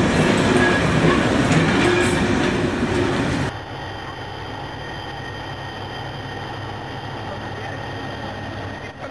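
Railway passenger coaches rolling past at close range, wheels rumbling with scattered clicks on the rails. About three and a half seconds in, the sound cuts abruptly to a quieter, steady rumble.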